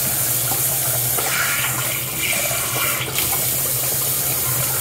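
Tap water running into a bathroom washbasin, with uneven splashing about a second to three seconds in as a child scoops it onto his face.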